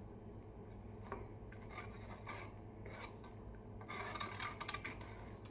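Faint rasping and rubbing sounds in short, scattered bursts, busiest about four seconds in.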